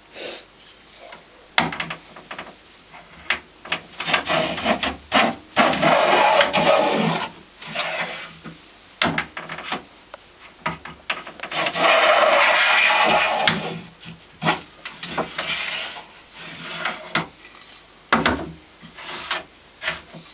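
Stanley No. 72 chamfer plane cutting a chamfer along a wooden edge: a run of scraping planing strokes, mostly short, with two longer, louder passes, one about five seconds in and one near the middle. Sharp knocks come between the strokes.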